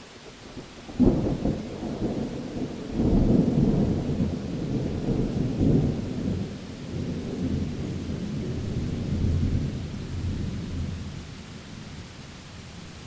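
Thunder: a sharp crack about a second in, then a long rolling rumble that surges again at about three seconds and slowly dies away, over a steady hiss of rain.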